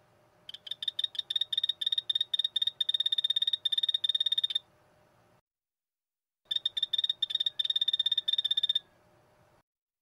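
Phantasmal poison frog (Epipedobates tricolor) calling: two bouts of rapid, high-pitched chirps, about six a second, each lasting a few seconds, with a short break between them.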